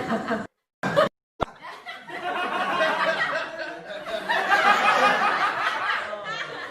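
Laughter sound-effect clips spliced one after another: a laugh cut off about half a second in, a short burst of laughter after a moment of dead silence, then a long fit of laughter lasting several seconds.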